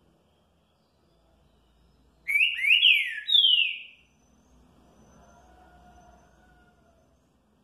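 Green-winged saltator (trinca-ferro) singing a short phrase of three loud whistled notes, each sliding down in pitch, about two seconds in. This is the 'curril curril rô' song type.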